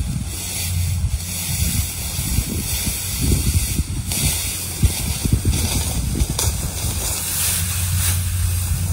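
Wind buffeting the microphone in the open: an uneven low rumble with a steady hiss above it.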